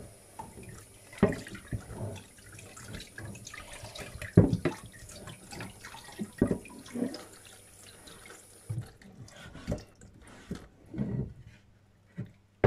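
Wet handling of a large raw salmon being cleaned on a wooden cutting board: irregular knocks, taps and squelching, with one louder knock about four seconds in.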